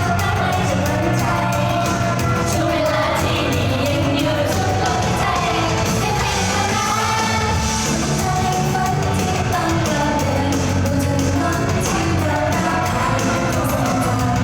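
Live pop song: a singer's lead vocal over a backing track with drums and bass, played through the stage sound system.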